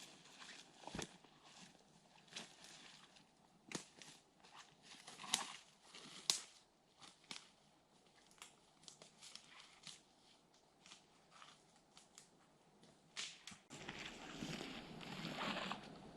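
Footsteps through dense forest undergrowth, with irregular snaps and crackles of twigs and dry debris underfoot. Near the end comes a louder brushing rustle of vegetation.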